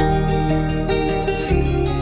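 Background music: plucked-string notes over a steady bass line.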